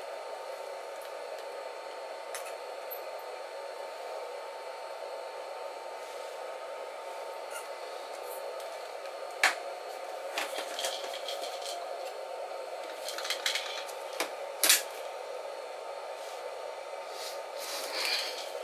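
Steady background noise with scattered sharp clicks and knocks, the loudest about halfway through and about three quarters of the way in, and a soft rustle near the end.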